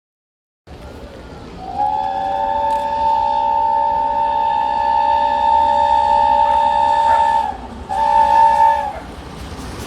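Chime whistle of the LNER Peppercorn A1 steam locomotive 60163 Tornado sounding one long blast of about six seconds, then a short second blast, over the low rumble of the approaching train.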